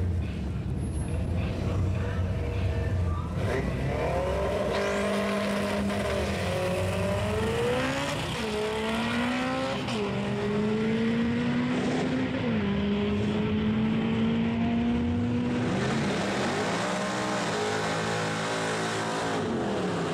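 A pickup truck and a car launching side by side down a drag strip. After a few seconds of idling at the line, both engines rev hard, and their pitch climbs and drops back at each upshift, four or so times, before the sound fades down the track.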